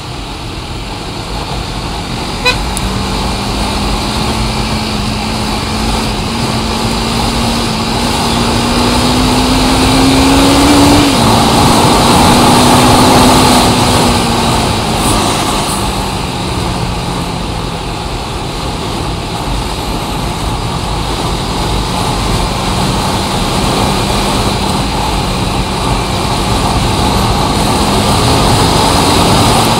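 Motor vehicle on the move in traffic: steady engine and road noise, with the engine note climbing for about ten seconds, falling back, and then holding steady. There is one sharp click a couple of seconds in.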